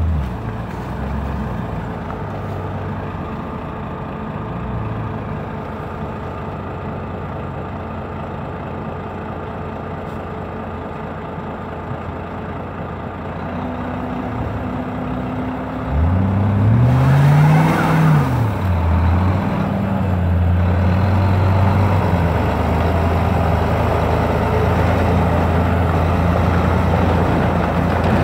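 Engines running as an Audi A8 quattro's 4.2 V8 tows a semi truck on ice: a steady drone, with the revs rising and falling about halfway through, then a steady, louder low engine drone.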